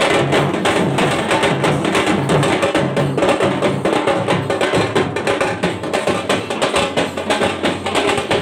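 Loud festival music driven by fast, dense drumming, with rapid strokes throughout over a low pitched line.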